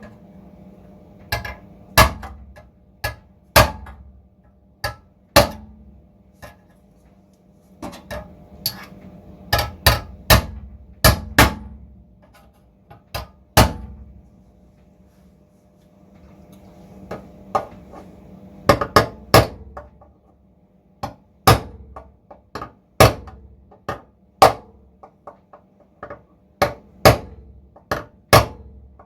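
Hammer striking steel car bodywork, dressing a panel to fit: dozens of sharp, ringing metal blows at irregular intervals, bunched in runs with a short pause about halfway through, over a faint steady hum.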